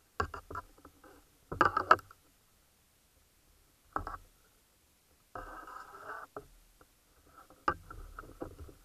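Water and handling noise from a diver gripping a speared pike, heard through an underwater camera housing: knocks, scrapes and bubbling in five irregular bursts, with a sharp knock near the end.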